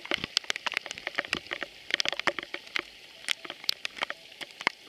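Water drops pattering onto a lake surface: many small, irregular drip splashes.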